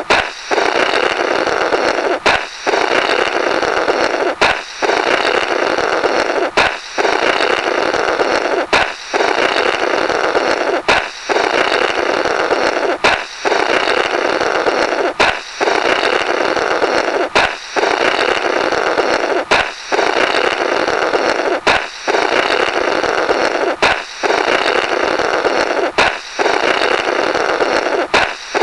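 Looped cartoon 'blorrrt' sound effect: a balloon pops with a sharp crack, then someone blows a long rough raspberry through the burst balloon's remnants for about two seconds, the pair repeating over and over.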